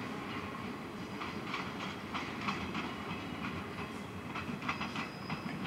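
JR 115-series electric train pulling out and moving away, its wheels clicking irregularly over rail joints and points over a steady rumble. A faint high squeal comes in near the end.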